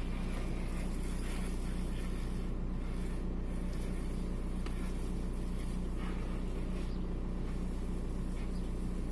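Volkswagen Golf 4's 1.9 TDI AXR four-cylinder diesel engine running steadily at a constant speed, with no revving. The engine has an intermittent cylinder 4 misfire that makes it shake.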